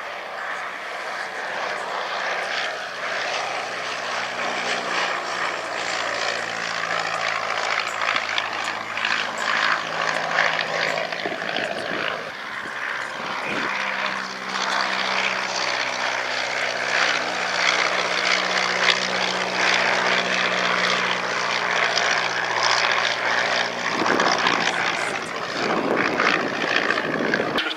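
Royal Aircraft Factory S.E.5a's water-cooled V8 engine and propeller running in flight with a steady, even note. The pitch dips about halfway through, and the sound then swells louder and rises again.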